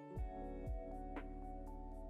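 Background music: held chords over a steady drum beat.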